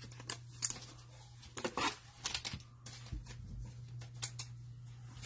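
Trading cards and their plastic pack wrapping being handled: a run of short rustles and clicks over a low steady hum.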